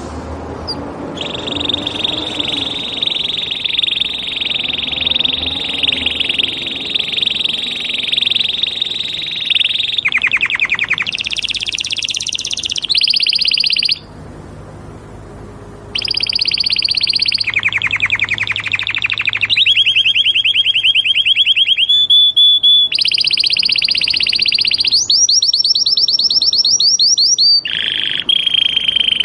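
Canary singing loudly: a long series of fast, high trills, each held for several seconds before it switches to another, with a short pause about 14 seconds in.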